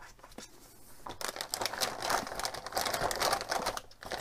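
Thin plastic bag around a clear plastic blister pack crinkling as it is handled, starting about a second in.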